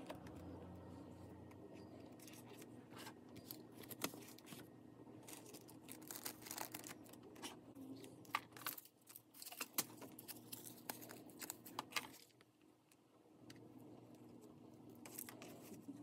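Faint handling noise of paper crafting: paper flowers and small embellishments rustling, with scattered light clicks and taps. It goes quiet for about a second near the end, then the rustling starts again.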